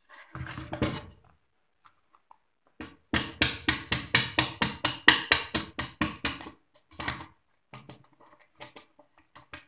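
A fast run of sharp taps, about five a second for some three seconds, ringing slightly in the plywood amplifier cabinet, then a few scattered clicks as the front panel is fixed on with hand tools.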